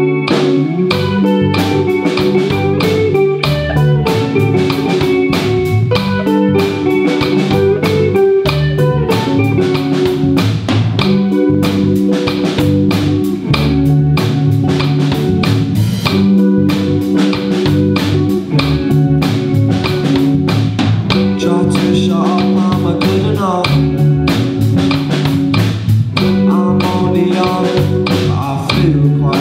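Live rock band playing an instrumental passage: electric guitars, bass guitar and drum kit together, with a steady beat.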